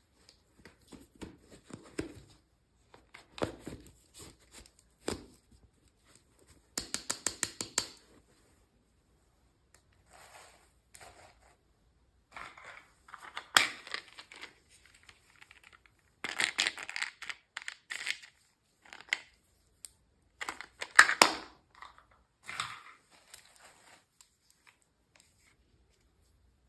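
Packaging being handled and torn open by hand: irregular crinkling and tearing, with a quick run of clicks about seven seconds in and sharper snaps near fourteen and twenty-one seconds.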